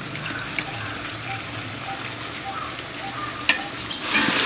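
A small animal chirping, short high calls repeated about three times a second. Near the end the chirps stop and a sizzle of frying in a pot of hot ghee and oil rises.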